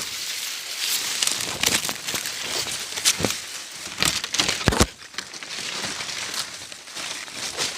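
Dry leaves and twigs rustling and crackling under handling while fallen hog plums are gathered, with a few sharper snaps about three and nearly five seconds in.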